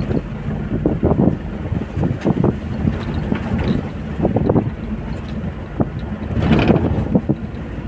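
Engine and road rumble inside the cabin of a Nissan driving along a rutted dirt track, with frequent short knocks and rattles as it jolts over the bumps. Near the end there is a brief louder rushing noise.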